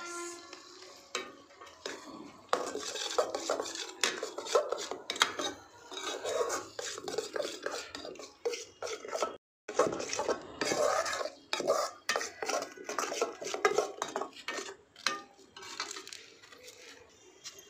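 Metal ladle stirring and scraping thick masala sauce in a metal kadai, clattering irregularly against the pan. The sound cuts out briefly about halfway through.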